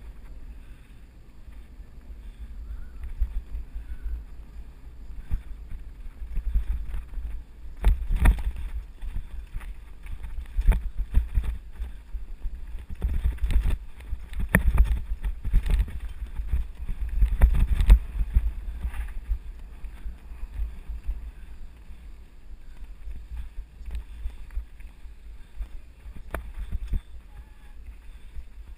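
Mountain bike riding fast down a rough dirt trail, picked up by a GoPro action camera: a low rumble of wind on the microphone with frequent rattles and knocks from the bike jolting over bumps, busiest in the middle stretch.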